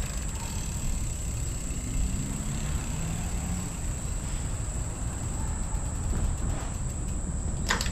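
Low, steady rumble of an approaching storm, with a thin high-pitched whine running above it and a sharp knock near the end.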